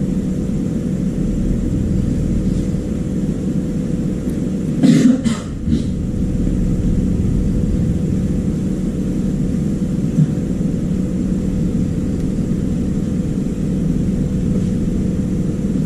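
Steady low rumble with a constant hum. About five seconds in, a person coughs two or three times.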